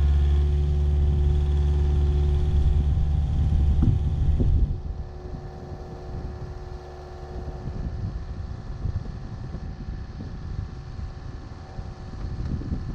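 Diesel engine idling steadily close by, with a couple of sharp knocks about four seconds in. The engine cuts out soon after, leaving a fainter engine hum and a rumble of wind.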